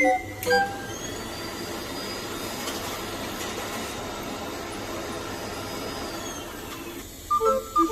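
An electric pharmacy machine running steadily for about six seconds, with a faint motor whine that rises as it starts and falls away as it stops.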